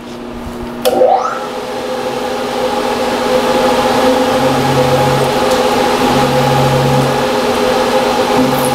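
Milling machine spindle switched on with a click about a second in, its motor whining up to speed and then running steadily, with a drill bit drilling a soft copper vise jaw. A lower hum comes and goes about three times in the later part.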